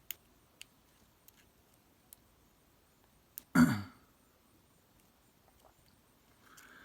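Sparse, faint clicks of a pick and tension tool working in a lock cylinder, and a little past halfway a person clearing their throat once, short and loud.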